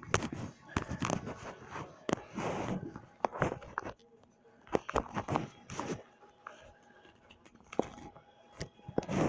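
Handling noise: clothing rubbing and bumping against the phone and its microphone, a run of irregular rustles, scrapes and sharp clicks. It is heaviest in the first few seconds and comes back loudly near the end.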